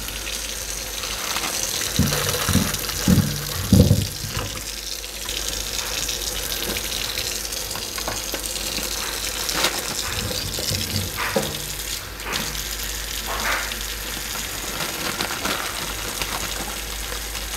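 Kitchen faucet running steadily into a stainless steel sink, with a handful of dull thumps about two to four seconds in as baby red potatoes are tipped into the sink, and a few lighter knocks later.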